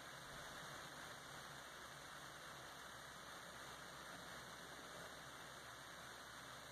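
Near silence: a faint, steady hiss with no radio sound playing.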